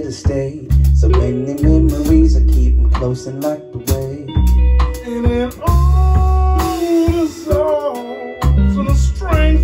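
Live soul band playing: a drum kit, electric bass and electric guitar, with a male voice singing long held notes over them.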